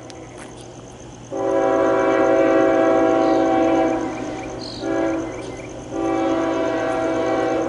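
Diesel locomotive air horn sounding a multi-note chord for a grade crossing: a long blast, a short blast, then another long blast, the crossing-signal pattern of an approaching train.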